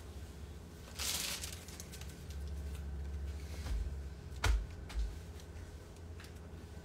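Clothes and fabric rustling as they are pulled from a closet shelf, with a sharp knock about four and a half seconds in and a softer thump just after.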